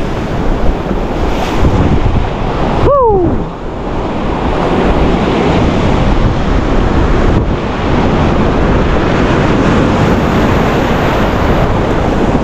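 Ocean surf breaking and washing up the beach, with wind buffeting the microphone. A short falling tone sounds about three seconds in.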